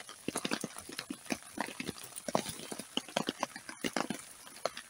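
Wood campfire crackling with many irregular small pops and taps, while rain patters around it.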